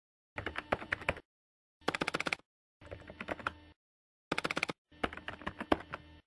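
Computer keyboard typing: five quick runs of keystrokes with short pauses between them.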